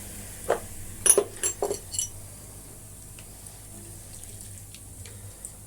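Hot water poured over a car battery's terminals to wash off corrosion, splashing onto tiles, with several short sharp splashes and knocks between about half a second and two seconds in, then quieter.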